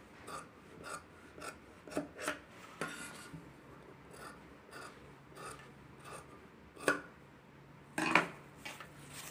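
Fabric scissors cutting through folded lining cloth: a string of irregular snips with the rasp of the blades and cloth, a few snips louder than the rest.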